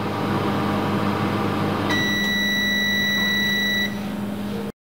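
Sharp double grill convection microwave oven running with a steady hum. About two seconds in, as its timer runs out, it gives one long beep of about two seconds, signalling that the cooking time is over. The sound cuts off suddenly near the end.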